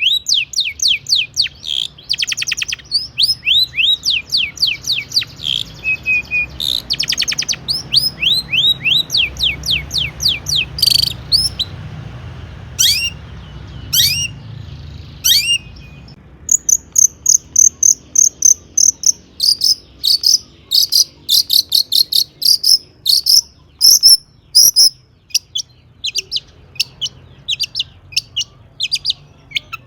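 Long-tailed shrike singing loud, rapid runs of short down-slurred chirps. The song thins to scattered notes in the middle, then picks up again as a fast string of high chattering notes.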